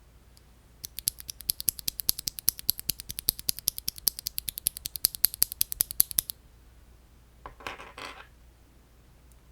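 Fast typing on a mechanical keyboard fitted with lubed and filmed Akko CS Crystal switches and PBT keycaps: a quick run of key clacks, about ten a second, for some five seconds. A brief, duller clatter follows near the end.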